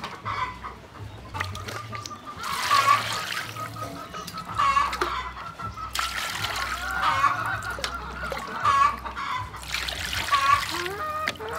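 Water poured from a steel bowl into a steel basin of raw salmon fins being washed by hand, splashing in three spells. A hen clucks repeatedly.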